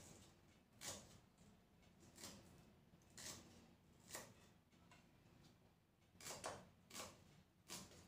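Kitchen knife slicing shallots on a round wooden chopping block: quiet, irregular taps of the blade striking the wood, about one a second, coming closer together in the last couple of seconds.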